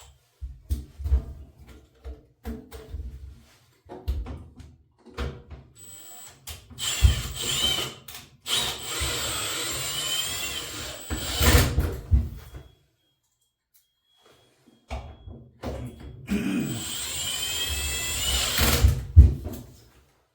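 Cordless power drill running in two long runs, its motor whine climbing in pitch as it speeds up. Before them come scattered knocks and clatter of tools and parts being handled.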